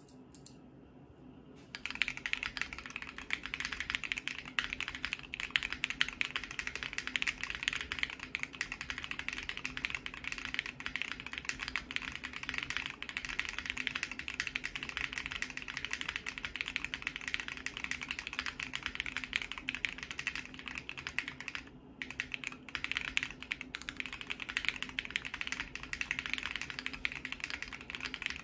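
Continuous fast typing on a Bakeneko60 mechanical keyboard with lubed Zaku tactile switches on an FR4 plate. The typing starts about two seconds in and breaks off briefly about three quarters of the way through.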